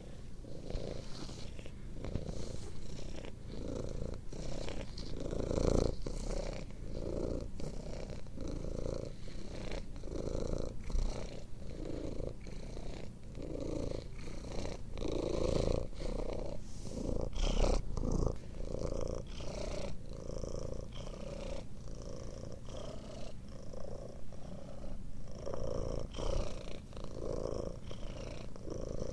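Domestic cat purring, rising and falling in even pulses a little over once a second.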